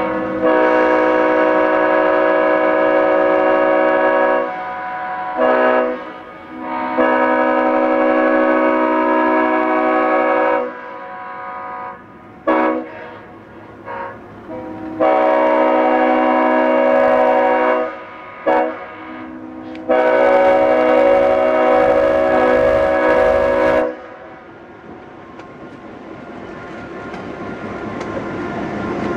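Leslie S5T five-chime air horn on a locomotive sounding a chord in four long blasts of about four seconds each, with short toots between them. In the last few seconds the horn stops and the rumble of the moving train grows steadily louder.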